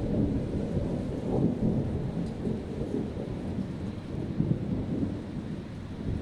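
Thunder rumbling low and unevenly in a rainstorm, slowly easing off, with rain falling.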